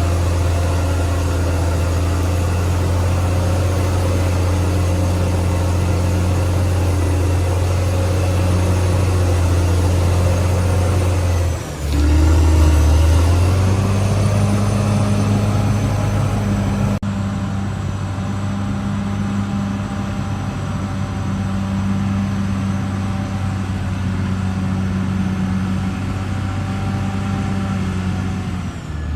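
Caterpillar D6R XL bulldozer's diesel engine running steadily at working revs. About twelve seconds in the note sags lower and louder for a moment, as under a heavy load, then settles at a slightly higher steady pitch.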